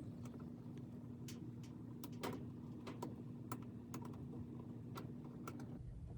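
Faint, irregular small clicks and taps of wire connectors and a jumper lead being handled in a dryer's control panel, over a faint steady hum that stops near the end.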